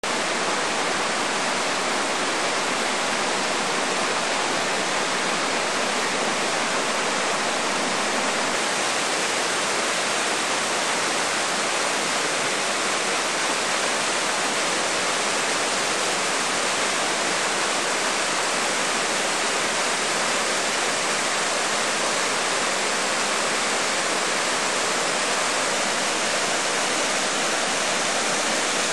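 Waterfall on the River Lyd pouring in a steady, even rush of falling water, with no change in strength.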